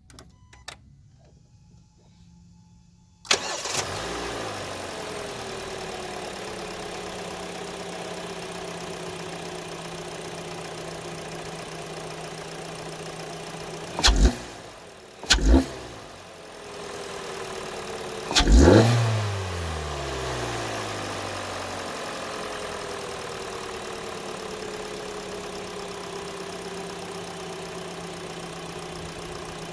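A 2017 Hyundai Elantra's 2.0-litre four-cylinder engine, fitted with a short ram intake, starts about three seconds in and its idle settles down. A little past the middle it is revved three times, each rev dropping back to idle; the third is the longest.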